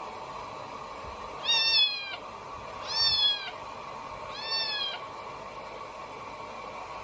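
Kitten meowing three times, evenly spaced about a second and a half apart, each call short, high-pitched and falling slightly at the end, the last one softer, over a steady background hum.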